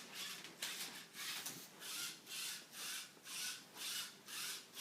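A LEGO Mindstorms EV3 Rubik's cube solver working through its colour scan, its plastic parts rubbing with a regular raspy swish about twice a second.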